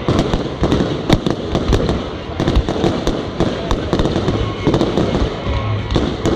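Fireworks going off in rapid, continuous succession: many bangs and crackles, a few louder than the rest, with no pause.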